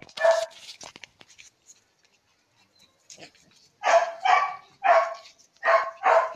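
Excited puppy barking: one short bark at the start, then five short yapping barks in quick succession from about four seconds in.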